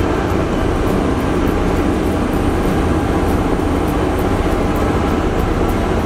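Two LiuGong 6122E single-drum soil rollers driving slowly over compacted soil, their diesel engines running with a steady low drone.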